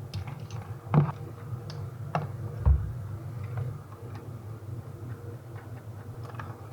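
Scattered clicks and light knocks of wiring connectors and harness clips being unfastened from a removed Lexus RX350 electric power steering column, with a louder click about a second in and a dull thump a little before three seconds, over a steady low hum.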